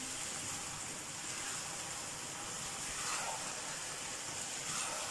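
Low steady sizzle of basmati rice pulao in a nonstick wok as its last water cooks off, with soft stirring from a silicone spatula.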